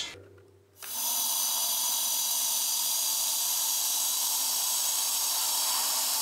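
Steady hiss of pressurized air venting through the exit valve of a hyperbaric oxygen chamber as it decompresses, heard from inside the chamber; it starts about a second in.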